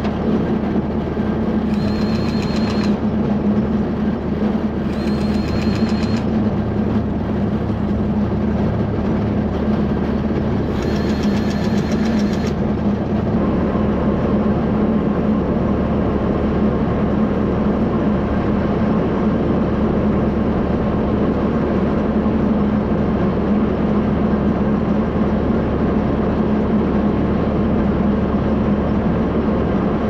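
Tractor engine idling steadily, with a cordless battery grease gun whirring in three short bursts, about 2, 5 and 11 seconds in, as it pumps grease into the manure spreader's fittings.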